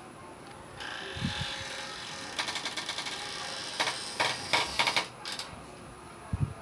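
Wattled jacana giving rapid, rattling chattering calls in several bursts, the loudest about four to five seconds in, with a couple of low thumps.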